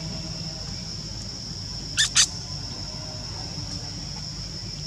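Two short, sharp high-pitched animal calls a quarter second apart, about two seconds in, over a steady high insect drone of the forest.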